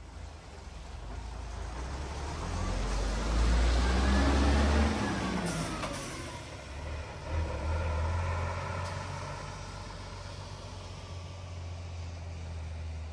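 Route bus passing close by and pulling away: engine and tyre rumble swells to a peak about four seconds in, with its engine note rising then falling as it goes by. The engine rises again briefly about eight seconds in, then the sound fades as the bus drives off.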